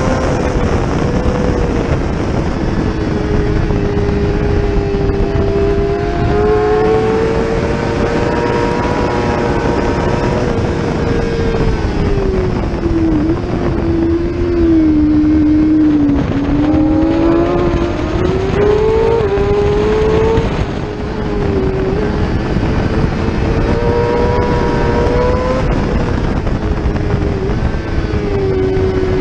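600cc superbike engine running hard at racing speed, over a steady rush of wind noise. About halfway through its pitch drops in steps while slowing for a corner, then climbs again as it accelerates out, with a quick dip at an upshift.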